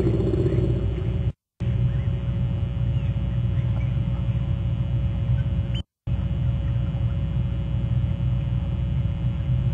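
Steady low rumble with a constant hum, cutting out completely for a moment twice.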